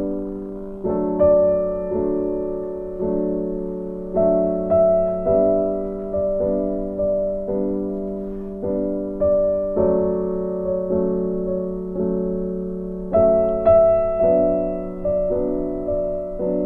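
Background music: slow, gentle solo piano, single notes and chords struck every half second or so, each dying away before the next.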